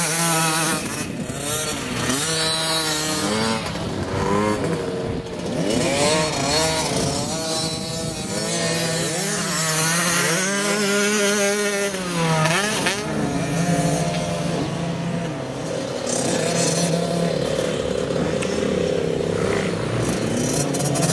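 Several small youth motocross bikes running on a dirt track, engines revving up and down as they ride past, with more than one engine heard at once.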